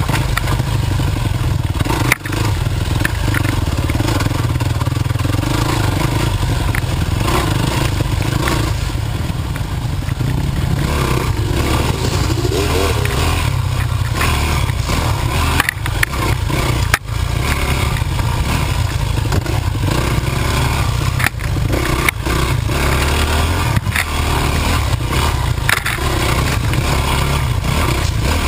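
Dirt bike engine running loudly and steadily under riding load, with sharp knocks and rattles several times as the bike hits bumps.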